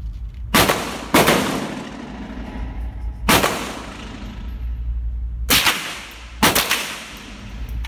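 Five rifle shots in a reverberant indoor range, each ending in a long echoing tail. The first two come about half a second apart, the third about two seconds later, and the last two about a second apart.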